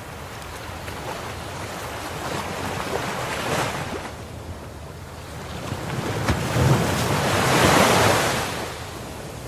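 Ocean waves breaking on a shore: a steady wash of surf with a smaller wave cresting about three seconds in and a bigger, louder one breaking around seven to eight seconds in, then receding.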